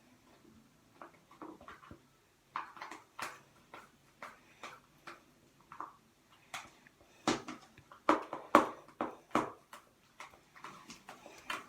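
Sticky slime being mixed in a bowl as saline is worked in: irregular short wet clicks and taps, sparse at first and coming thicker and louder past the middle.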